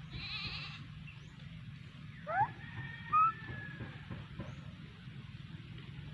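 A goat bleats once in a high, quavering voice at the very start. Later come a few short rising squeaks, the loudest right at the end.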